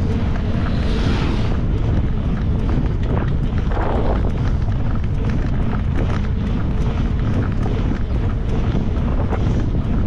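Wind buffeting the microphone of a moving rider: a steady, heavy low rumble.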